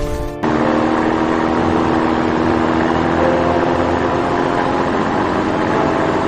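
An engine running steadily with a low, even hum, starting abruptly about half a second in.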